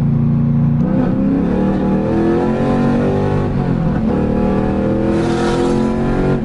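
Modified LS1 V8 with a Stage 4 cam, long-tube headers and Borla cat-back exhaust, accelerating hard: the engine note climbs in pitch, drops about four seconds in as it shifts up, climbs again, and eases off near the end. The traction control cuts in a couple of times.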